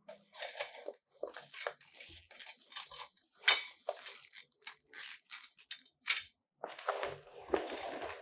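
Metal rods and ring of a Godox octagon softbox frame clicking and clattering as they are handled, with one sharp clack about three and a half seconds in. Near the end, the softbox's nylon cover rustles.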